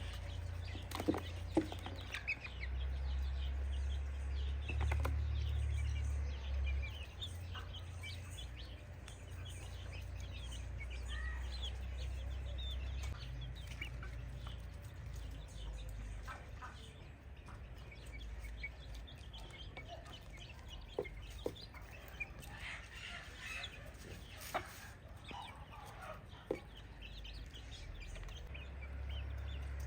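Free-range chickens clucking in scattered short calls, with a few sharp clicks, over a steady low rumble.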